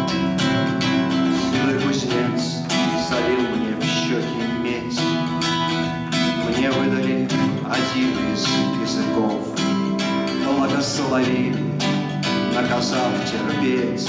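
Solo acoustic guitar playing a steady picked accompaniment, the instrumental introduction to a song before the voice comes in.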